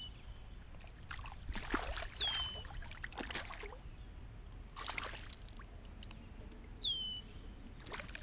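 A hooked bass splashing at the surface beside a kayak in several bursts, the last as it jumps clear near the end. A short, high falling whistle sounds three times.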